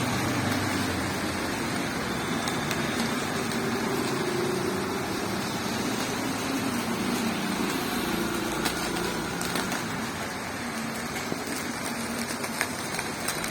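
Street traffic in heavy rain: car engines running, with a steady hiss of rain and wet road noise.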